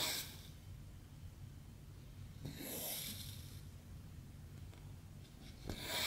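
Cotton embroidery floss pulled through Aida cross-stitch fabric: three rasping swishes about every three seconds, the middle one the longest.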